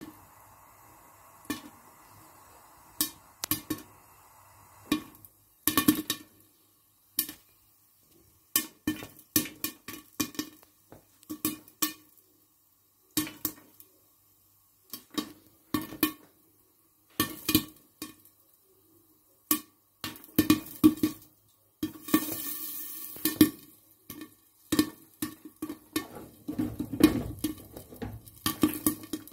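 Popcorn kernels popping in a pan under a glass lid: sharp single pops, few and far between at first, coming more and more often until they fall in quick clusters. Many pops ring briefly, and there is a short stretch of hiss about two-thirds of the way through.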